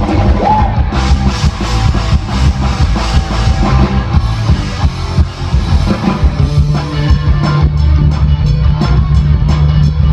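Live rock band playing: PRS electric guitar over bass and a drum kit, with a steady bass note held from about six seconds in.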